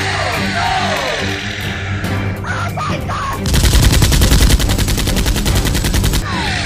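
Background music, with a burst of rapid automatic gunfire starting about three and a half seconds in and lasting nearly three seconds, louder than the music.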